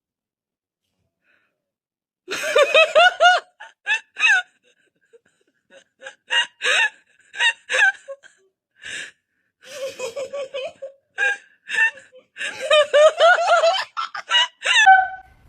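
A person laughing hard in short, high-pitched bursts, starting about two seconds in, with gasps between the bursts.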